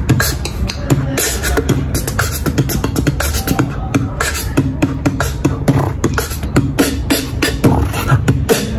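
A man beatboxing into the microphone at close range: a quick, steady rhythm of mouth clicks and snare-like hits over bass-drum thumps.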